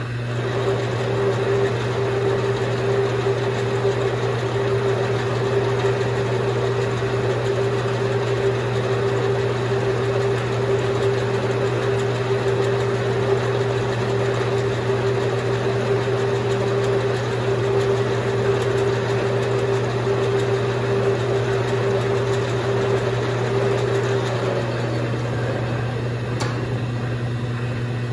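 Vintage Atlas TH42 metal lathe running: a steady motor hum under a steady higher whine from the drive. Near the end the whine slides down and fades away while the hum carries on.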